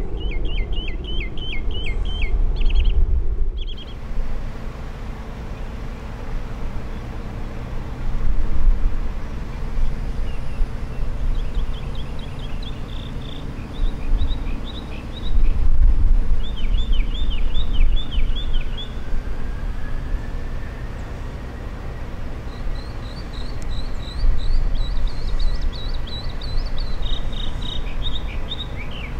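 A songbird sings repeated phrases of quick chirps, several times over, above a low rumble that swells and fades in gusts. A faint rising whine comes in during the second half.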